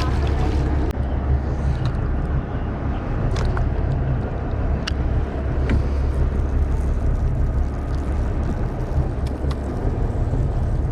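Steady low rumble of the charter boat's engine running, with a few short clicks and taps scattered over it.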